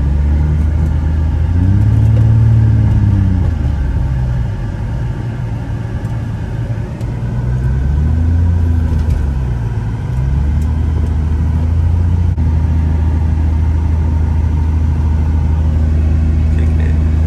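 Infiniti G35's VQ35DE V6 engine driving, its revs rising and easing off twice, then holding a steady drone through the rest.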